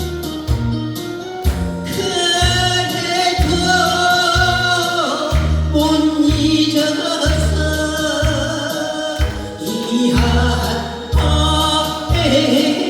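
A Korean trot song sung live over band accompaniment with a steady, even bass beat. The voice comes in about two seconds in, with long held, bending notes.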